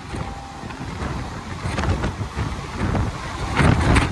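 Express train's passenger coaches rushing past at speed: a steady rumble and rush with wheels clattering over the rail joints, the loudest clatter near the end as the last coach goes by. Wind buffets the microphone.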